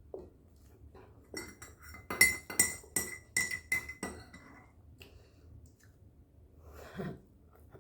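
A spoon clinking against ceramic tableware about seven times in quick succession, each strike ringing with the same bright tone, then a softer knock near the end.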